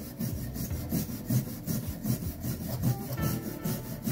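Steel wire brush scrubbed hard back and forth over a rusty steel adjustable wrench in quick rasping strokes, several a second. It is scraping off surface rust softened by a vinegar soak.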